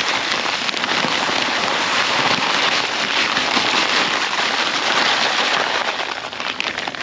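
Dry fast-setting post concrete mix, gravel and cement, pouring out of a paper bag into a post hole: a steady gritty hiss and rattle of stones, trailing off near the end as the bag empties.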